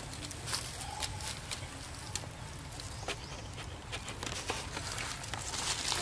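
Outdoor ambience of scattered light crackles and taps at irregular intervals over a steady low rumble, with a faint short squeak about a second in.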